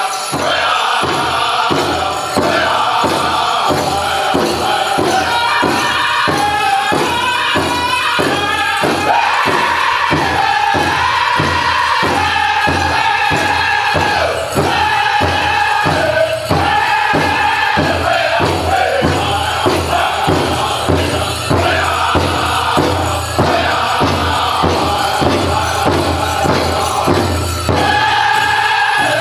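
Powwow drum group singing a chicken dance song in high voices over a steady, even beat on the big drum, about two beats a second.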